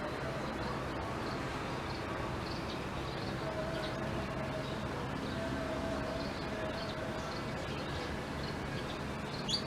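Faint, high chirps of a blackthroat (black-throated canary) repeating over steady rumbling background noise with a low hum that comes and goes. One brighter rising chirp sounds near the end.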